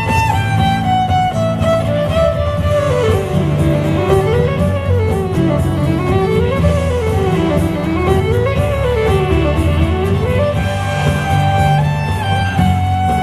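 Fiddle playing an instrumental melody over a steady low accompaniment. The melody slides down, then rises and falls in three slow, smooth swoops before settling on a held note near the end.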